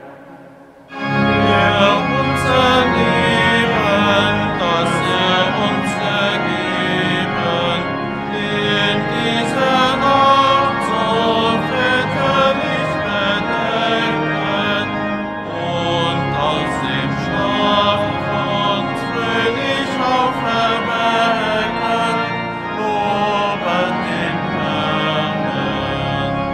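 A boys' and men's church choir singing in many parts, entering suddenly about a second in after a brief hush. The sound is full and carries the reverberation of a large church.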